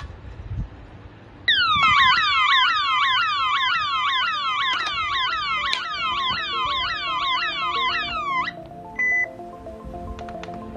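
Electronic alarm siren sounding loudly as a rapid series of falling whoops, about three a second, for about seven seconds, then cutting off suddenly. A single short electronic beep follows about half a second later.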